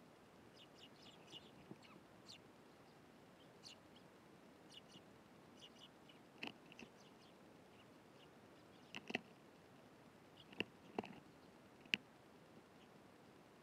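Eurasian tree sparrows chirping in short, scattered calls, with a few sharp taps among them, the loudest of these in the second half.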